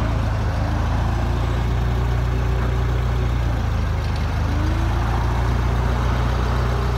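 Clark forklift's engine running steadily as the forklift carries a heavy engine on its forks, with a faint higher whine that comes and goes and rises in pitch about four and a half seconds in.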